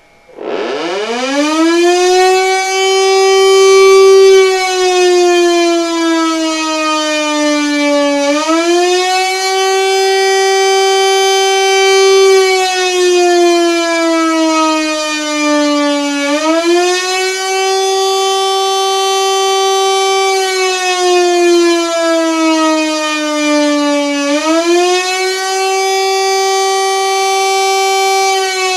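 Siemens & Halske electro-mechanical air raid siren from the 1930s starting up, its howl climbing steeply from a low growl to full pitch within about two seconds. It then rises and falls in slow cycles about eight seconds long: the wavering air raid alert signal.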